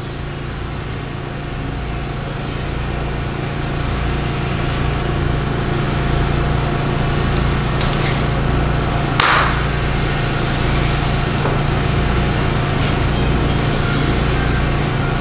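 A steady low droning hum over a hiss, slowly swelling in loudness, with a sharp click about nine seconds in.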